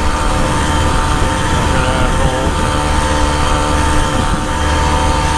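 49cc Motoped motorized bicycle engine running steadily at cruising speed, holding one even note.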